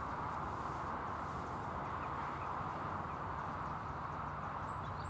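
Steady outdoor background noise: a constant hiss over a low rumble, with no distinct event.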